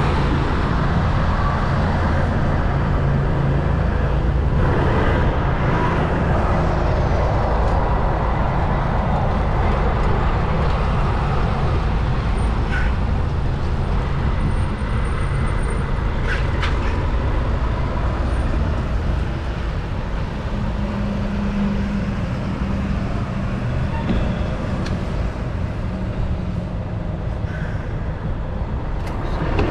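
Steady road-traffic noise heard from a moving bicycle: a continuous low rumble of vehicle engines and road noise, with a few faint, brief high squeaks above it.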